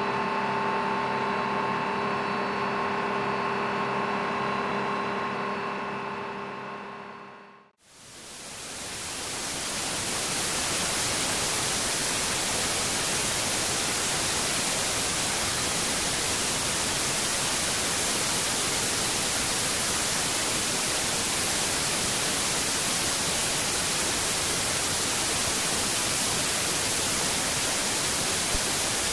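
A steady machine hum made of several steady tones fades away over the first eight seconds. An even, unchanging hiss like static then fills the rest.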